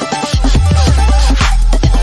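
Background music: an electronic hip-hop track with a heavy bass line and a steady drum beat.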